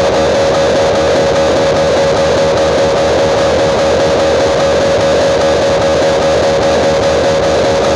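Loud guitar-led music played through large outdoor-cinema PA speaker rigs, at a constant, unbroken level.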